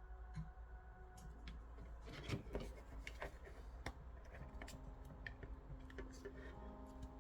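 Small clicks, taps and scraping of parts and tools being handled during a speaker repair, busiest about two to four seconds in.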